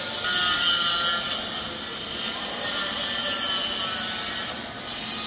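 A train moving through the station, with a high-pitched hiss and squeal from its wheels. It swells loudest about half a second in and again briefly near the end.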